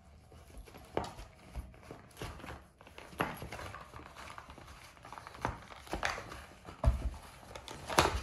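Labrador puppy nosing and pawing at a moulded cardboard egg tray on a wooden floor: irregular light knocks and scrapes as the pulp carton is bumped and shoved along the boards.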